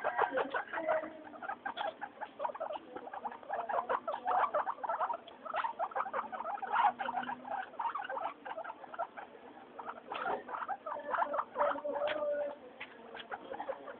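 Guinea pigs chattering in a rapid run of short squeaks, with a longer held note now and then, as they jostle one another.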